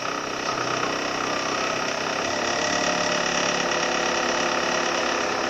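Car engine idling steadily with the air conditioning switched on: a steady mechanical hum made of several even tones, growing slightly louder about half a second in.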